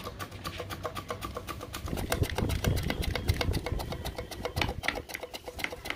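Peeled cassava being pushed back and forth over a handheld stainless-steel slicer, making fast, even scraping strokes, several a second. The strokes get heavier about two seconds in.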